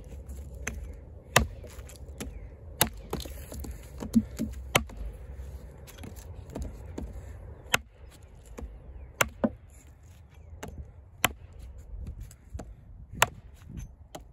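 Kobalt 14-inch camp axe chopping into a soft, thin branch resting on a stump chopping block. There are about seven sharp chops, roughly one every one and a half to two seconds, with lighter knocks between them.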